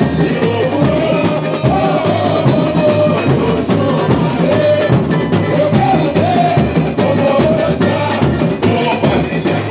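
Samba-enredo played loud through a carnival sound truck's speakers: a man's voice singing the melody over dense samba percussion with a deep, steady drum beat.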